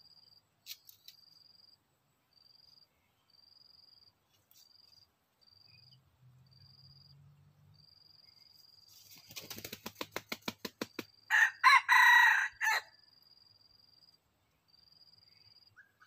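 A red junglefowl rooster gives a quick run of wing flaps and then one short crow, about a second and a half long and loud.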